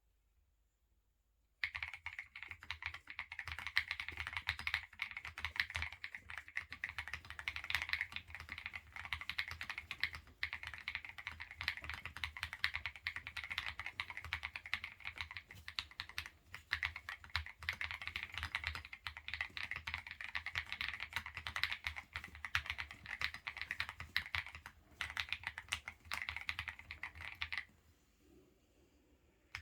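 Fast continuous typing on an MW65 custom mechanical keyboard with Tecsee Carrot switches, XDA keycaps and a polycarbonate plate, dampened with foam and tape mods, on a PU leather desk mat. The typing starts about two seconds in, pauses briefly a few times, and stops near the end.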